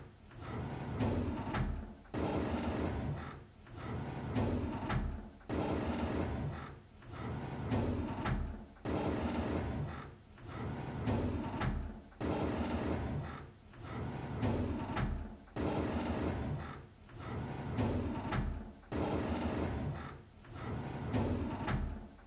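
A drawer sliding open, the rough rumble of its runners repeating as a loop about every three and a half seconds.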